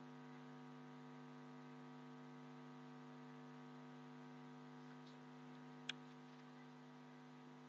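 Near silence with a steady electrical hum from the recording chain, and a single short click about six seconds in.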